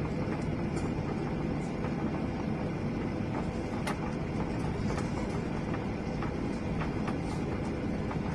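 Steady rumble of a Boeing 777 under way, its engines and airflow making an even noise, with a few faint clicks scattered through it.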